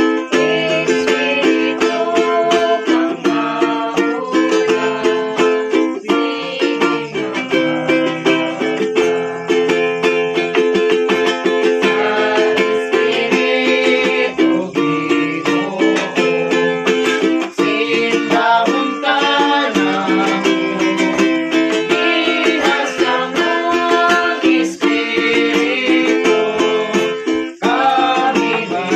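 Music led by a plucked string instrument strumming a steady rhythm, with sustained notes throughout.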